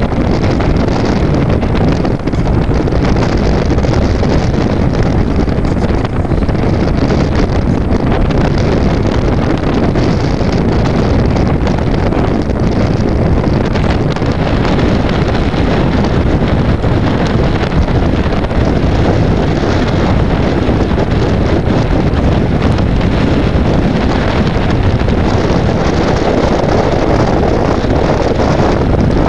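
Strong mountain wind buffeting the camera's microphone: a loud, steady rumbling rush.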